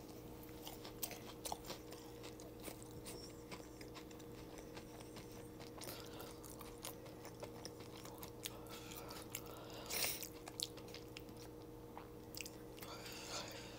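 A person chewing a mouthful of fried, cornmeal-battered onion ring close to the microphone, with soft crunching and small wet mouth clicks, and a louder crunch about ten seconds in.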